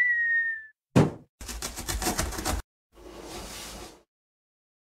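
Cartoon intro sound effects: a short high tone that dips slightly in pitch, a sharp thump about a second in, a rapid rattle lasting just over a second, then a softer whoosh.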